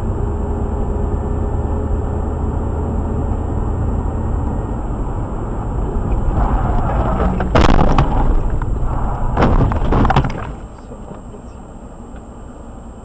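Car driving, heard from inside the cabin on a dashcam: a steady low engine and road rumble. Past the middle come two loud bangs about two seconds apart, and soon after the rumble falls quieter.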